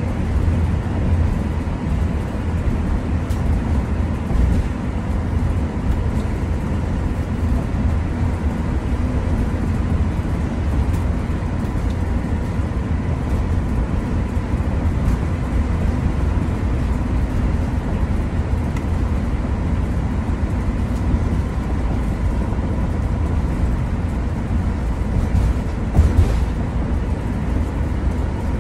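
Steady low rumble of a motorhome cruising at highway speed, heard inside the cab: engine and drivetrain drone with tyre noise on wet pavement. One brief knock stands out near the end.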